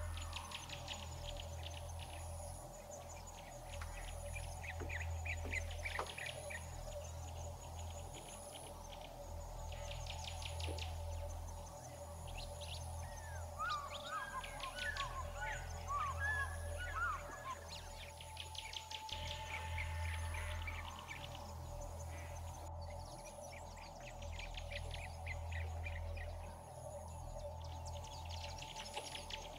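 Nature ambience of birds and insects: rapid chirping trills that come and go every few seconds, a short run of twittering birdsong about halfway through, and a faint high pulse repeating about every second and a half, over a steady low hum.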